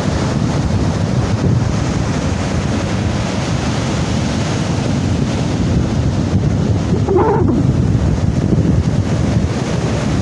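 Surf breaking and washing up a sandy beach, with strong onshore wind buffeting the microphone into a steady low rumble.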